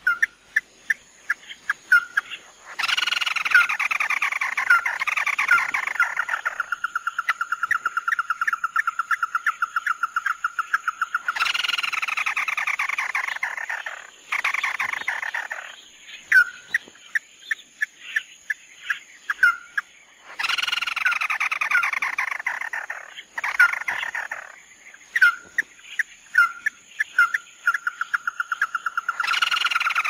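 Crake calling: a loud descending whinnying trill that comes back roughly every nine seconds. Each trill runs into a long, even series of rapid notes on one pitch, with sharp single notes between.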